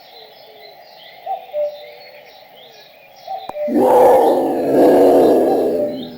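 Doves cooing softly and small birds chirping. Then, about halfway through, a loud, rough animal call lasting about two seconds drowns them out.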